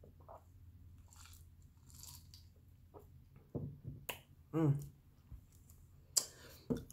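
Quiet close-miked eating sounds: a person sipping a drink and chewing, with two short hummed "mm" sounds about halfway through and a few sharp mouth clicks.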